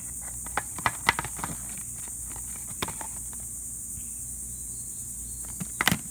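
Scattered light knocks and taps from handling a cardboard jigsaw puzzle box, a few about a second in, one near the middle, and the loudest cluster near the end, over a steady high-pitched hiss.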